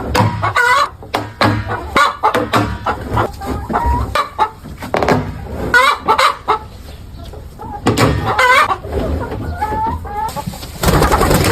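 A flock of chickens clucking and squawking in many short, irregular calls, with a loud burst of noise near the end.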